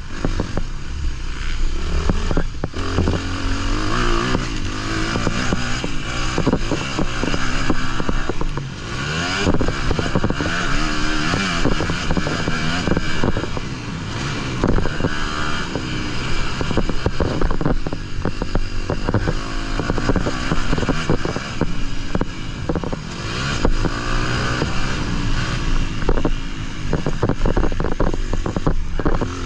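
Honda CR250 two-stroke motocross bike heard from onboard as it is ridden around a dirt track, the engine revving up and falling away again and again as the rider works the throttle and gears. Wind noise sits over it throughout.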